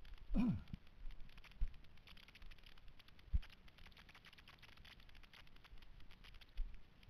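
Footsteps crunching on a gritty rock trail with the rub and crackle of a handled action camera, a steady patter of small clicks. A short falling tone sounds about half a second in, and a single sharp thump about three and a half seconds in.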